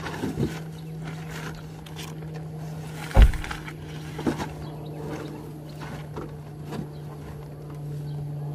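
Woven plastic sacks and a backpack being shifted and set down in a pickup truck bed: rustling and a few knocks, the heaviest a deep thump about three seconds in, over a steady low hum.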